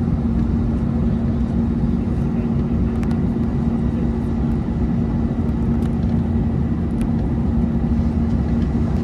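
Steady jet engine and airflow noise inside an Airbus A321neo's cabin, with a strong constant low hum under the rushing noise.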